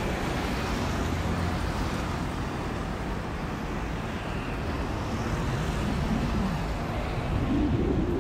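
Road traffic: a steady rumble of passing cars and engines, getting a little louder near the end.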